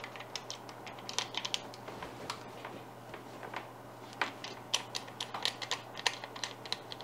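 Irregular clusters of short plastic clicks and ticks from hands twisting and fitting the nose cap of a Dremel 4300 rotary tool, which is switched off.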